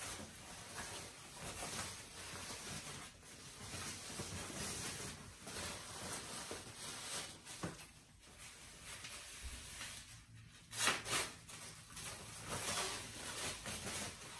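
Soft white protective wrapping being pulled and unwound off a wooden armchair: irregular rustling and crinkling, with two louder rustles late on.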